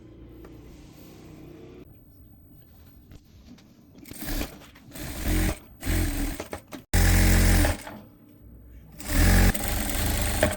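Electric sewing machine stitching in about five short runs, each under a second long, after a few quiet seconds.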